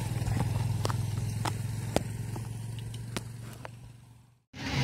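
A motorcycle engine running steadily with a low hum, with a few sharp clicks over it; the sound fades out a little after four seconds in.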